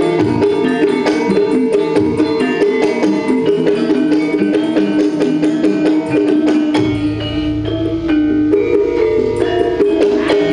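Campursari band playing live: gamelan metallophones struck in quick runs over kendang drum and keyboard.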